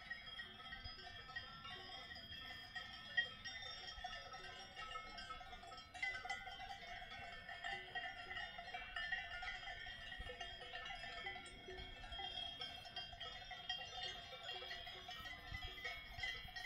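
Many bells on grazing alpine livestock ringing and clanking together in a continuous, overlapping jangle. It gets a little louder about six seconds in.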